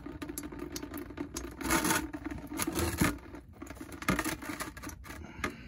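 Residual gasoline dripping and trickling from a just-disconnected fuel filter line on a 2008 Ford Focus into a bucket, coming and going in a few louder surges. The fuel system has been depressurized, so this is only the fuel left in the line draining out.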